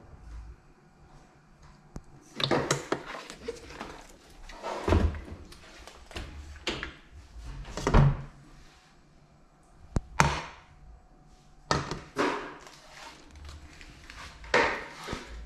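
Irregular thuds and knocks of kitchen handling, some in quick pairs: a frying pan shifted and set down on a glass hob and other items put down nearby.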